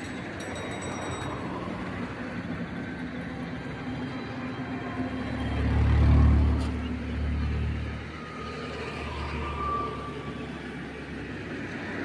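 Steady low traffic rumble, with one vehicle passing that swells to the loudest point about halfway through and then fades.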